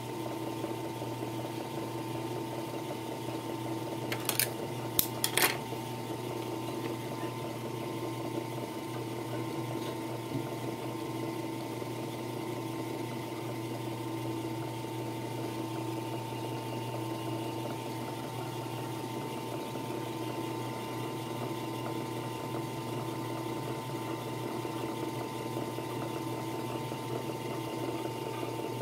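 Steady hum of the motor of a Puritan three-needle industrial sewing machine running without stitching, with three sharp clicks about four to five and a half seconds in.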